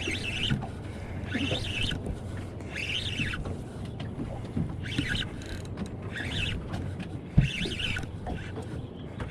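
Spinning reel wound in short, repeated bursts about every second or so while a fish is pumped up, over the steady hum of a boat's engine; a single knock about seven seconds in.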